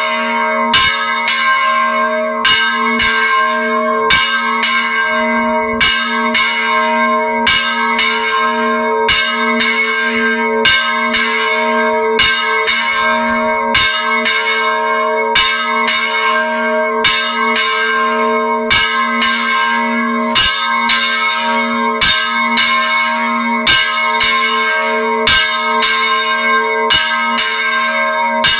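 Church bell swung full circle by hand, its clapper striking at a steady pace of a little more than once a second, each stroke's ringing running into the next. Heard at close range inside the belfry.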